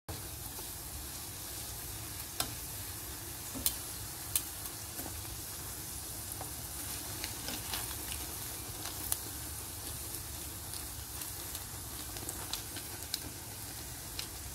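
Fish balls deep-frying in hot oil: a steady sizzle, broken by a few sharp pops and clicks.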